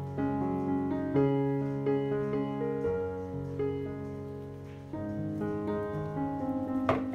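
Background piano music, slow held chords.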